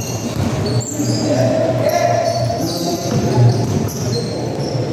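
A basketball bouncing on a court during a game, against a steady, fairly loud background din.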